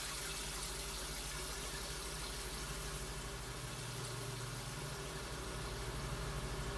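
A steady low hum under an even hiss, with no change in level.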